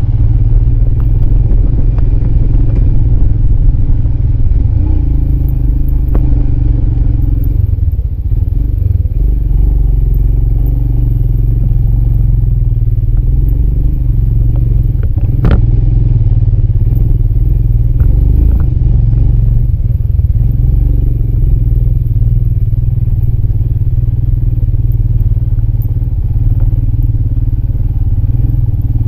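Motorcycle running at trail pace over a rough, stony dirt track, with the bike clattering over the stones. One sharp knock stands out about fifteen seconds in.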